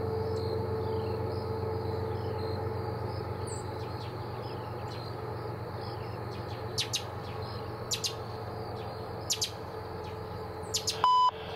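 Insects chirping at dusk, a short falling chirp repeated about once a second over a steady low hum. Near the end come a few sharp clicks and a brief beep.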